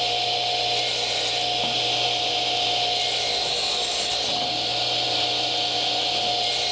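Power crosscut saw running with a steady motor whine, its blade lowered into a pine board three times to cut shallow kerfs that clear out a dado, each pass a short burst of higher cutting noise.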